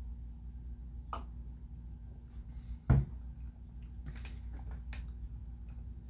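A drinking glass set down on a table with a single thud about three seconds in, with a few faint clicks before and after over a steady low hum.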